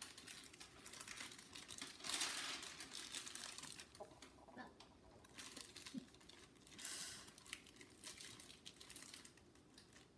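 Plastic bag crinkling and rustling in uneven bursts as sticky slime is worked out of it, loudest about two seconds in and again near seven.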